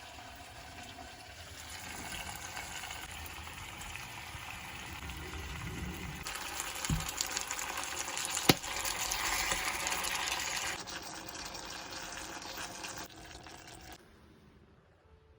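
Shrimp sizzling and bubbling as they cook, with a sharp click about eight and a half seconds in. The sound changes abruptly a few times, as between cut shots, and drops low near the end.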